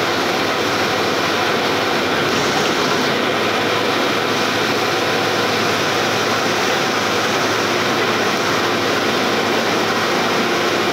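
Steady engine drone and tyre noise heard inside a city bus travelling at speed on a wet road.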